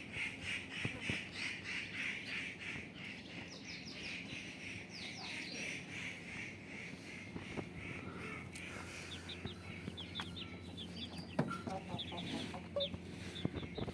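Chickens clucking and calling in a rapid pulsing run, then short high chirps scattered through the second half.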